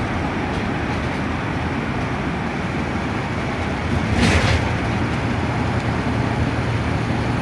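Transit bus on the move, heard from inside the cabin: a steady drone of engine and road noise, with a brief burst of hiss about four seconds in.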